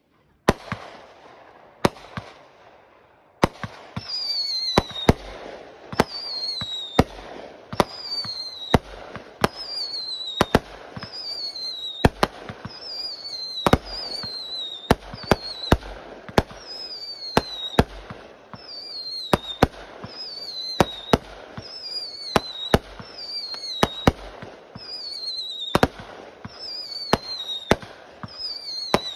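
Aerial fireworks going off in quick succession: sharp bangs about once a second over crackling. From about four seconds in, most bangs come with a short whistle that falls in pitch.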